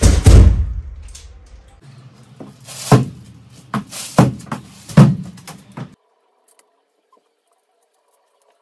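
Handling noise: a loud rustling thump at the start, then a handful of short knocks and clatters about a second apart, then dead silence for the last few seconds.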